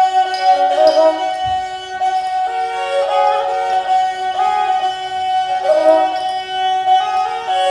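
Nepali sarangi, a bowed folk fiddle, playing a traditional Nepali tune. A steady drone note sounds under held melody notes that slide from one pitch to the next.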